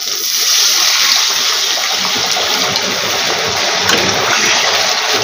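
Water being poured from a jug into a hot kadhai of fried masala: a steady rushing pour, the water hitting the oil and spices to make the gravy.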